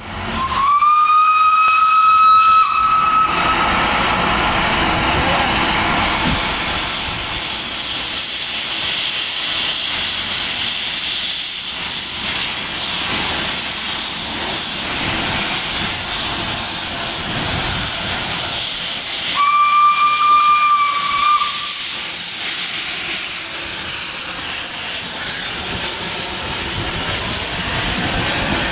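Narrow-gauge steam locomotive letting off a steady loud hiss of steam. Its whistle sounds at the start, sliding up and then held for about three seconds, and blows once more for about two seconds about twenty seconds in.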